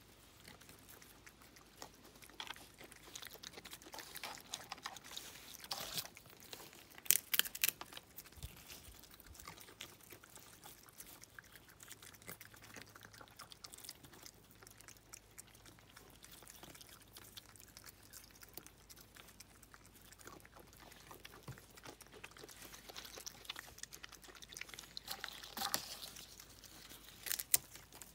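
Raccoons eating: faint chewing and smacking with scattered small crunches and clicks, a few sharper ones about seven seconds in and again near the end.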